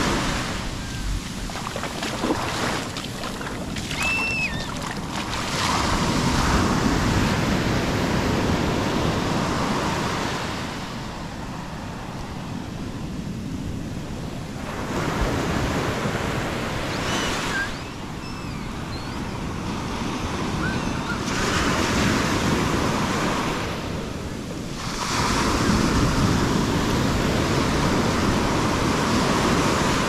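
Atlantic surf breaking and washing up over wet sand at the water's edge, swelling and easing roughly every five or six seconds as each wave runs in and drains back.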